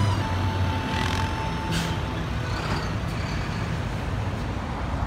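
Busy road traffic: car and truck engines running steadily under a wash of traffic noise, with two short hisses at about one and two seconds in.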